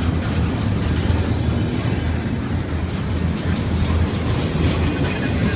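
Double-stack intermodal freight train rolling past close by: a steady low rumble of wheels on rail, with an occasional faint click from the wheels.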